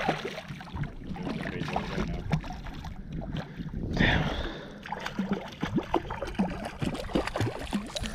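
Water lapping and gurgling against a small boat's hull, with many small splashes and clicks, and a louder rush of wind about four seconds in.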